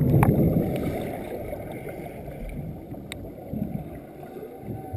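Muffled underwater sound picked up by a GoPro sinking in a lake: a dull low rumble that fades over the first second or two, settling into a quiet low wash with a couple of faint clicks.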